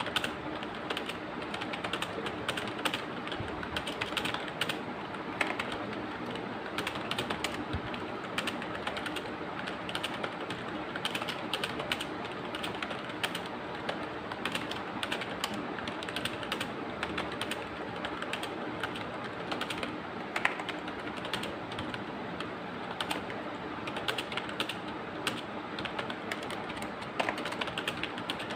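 Fast, continuous typing on a computer keyboard: a dense, uneven stream of key clicks with no pauses longer than a moment.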